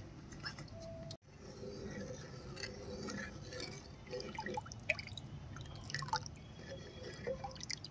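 A ladle stirring and scooping thin, watery curry gravy in a terracotta clay pot: liquid splashing and dripping back off the ladle, with small clicks of the ladle against the pot.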